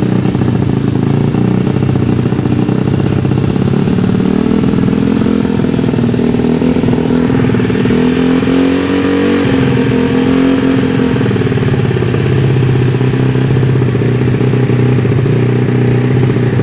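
Bored-up 160cc Yamaha Vega ZR single-cylinder four-stroke engine running at a steady idle through a prototype silent-type aftermarket exhaust, its pitch rising a little about seven seconds in and settling back a few seconds later. The freshly rebuilt engine is judged still stiff and in need of breaking in.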